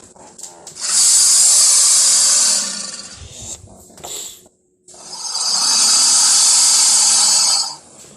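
Dimetrodon creature sound effect: two long, harsh hisses, each about two to three seconds, with a short gap between them.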